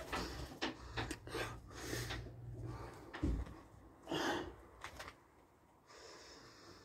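Aluminium pigeon-loft door and its latch being handled: a string of clicks and knocks, a dull thump about three seconds in, and a rustle a second later.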